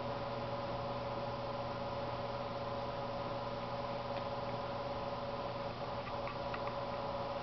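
Steady room hum made of several held tones over a faint even hiss, with a few faint ticks about six seconds in.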